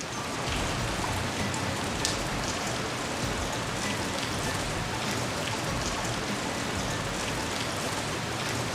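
Steady rain falling, with scattered individual drops pattering on a surface.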